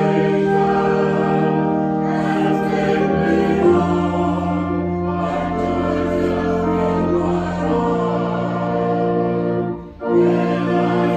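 Choir singing a slow hymn in sustained held chords, with a short break between phrases about ten seconds in.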